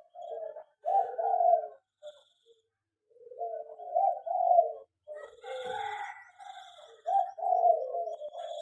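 Zebra doves (perkutut) cooing, several rolling phrases one after another with short gaps, likely more than one bird. A few faint high short notes sound above them.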